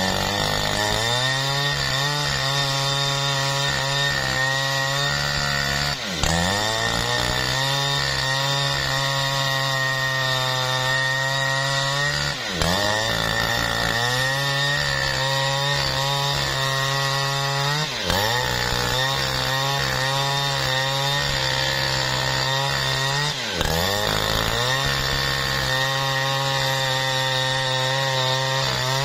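Jonsered chainsaw ripping lengthwise through a jackfruit log at high throttle. The engine pitch dips briefly and climbs back about every six seconds.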